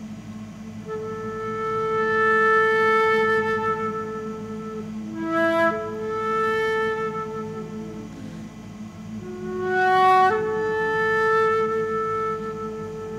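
Many people humming a low, steady drone together, with a flute playing a slow melody of long held notes above it.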